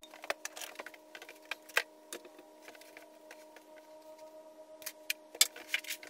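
Faint scattered clicks and taps of a man moving about and handling a diesel heater and its power wire, over a steady faint hum.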